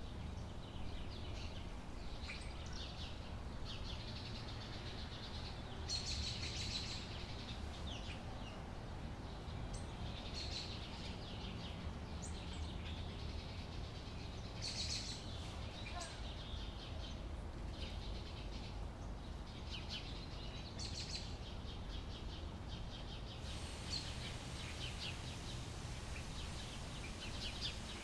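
Outdoor summer ambience: small birds chirping and calling, with one short phrase coming back every few seconds, over a steady low background rumble. Near the end a steady high hiss joins in.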